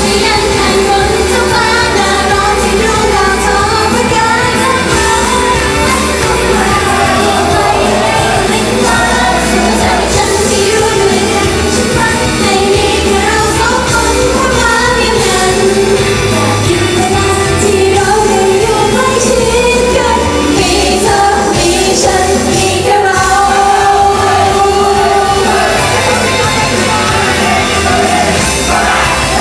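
Live idol-pop song: female voices singing into handheld microphones over a full pop accompaniment.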